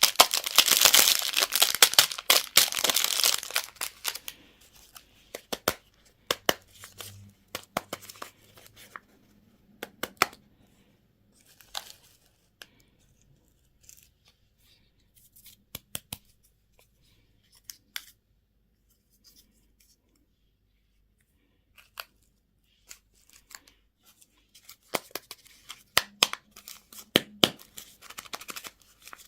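Plastic candy packaging being torn open and crinkled for the first few seconds, then scattered sharp clicks and taps as it is handled, with more crinkling near the end.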